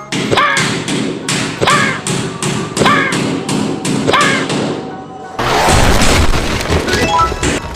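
Rhythmic thumping sound effects in a music track: steady knocks about four a second, with a short falling tone about every 1.2 s, then a dense rushing burst of noise for about a second and a half past the middle.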